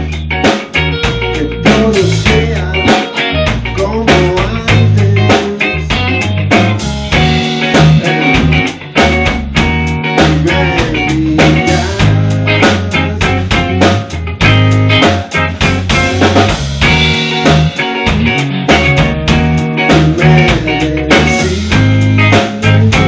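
Rock band playing: electric guitar over a drum kit keeping a steady beat.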